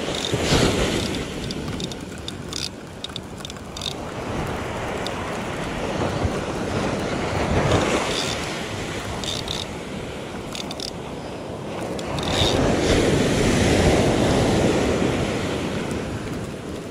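Small ocean surf washing up a sandy beach, with wind buffeting the microphone. Waves surge in about a second in, again around eight seconds, and loudest from about twelve to fifteen seconds, with a few short clicks in between.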